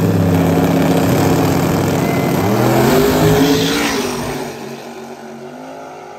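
Two small-tire drag cars launching at full throttle and running down the strip. The loud engine note dips and climbs again about two and a half seconds in, then fades away from about four seconds in as the cars pull off down the track.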